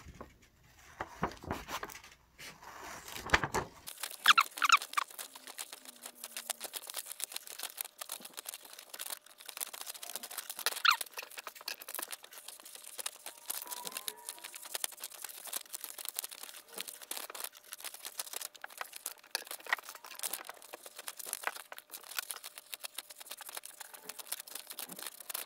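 Scissors snipping through a sheet of printed paper: a quick, continuous run of short cuts with paper rustling, starting about four seconds in.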